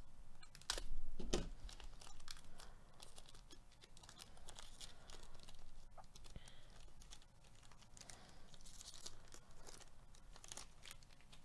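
Foil wrapper of a trading-card pack being torn open by hand, with crinkling and small crackles, loudest about a second in.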